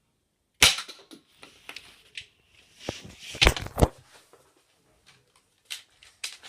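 Sharp clicks and knocks from a Nerf toy dart blaster and a bottle being shot at: a loud snap just under a second in, scattered small clicks, then two heavy thumps about three and a half seconds in.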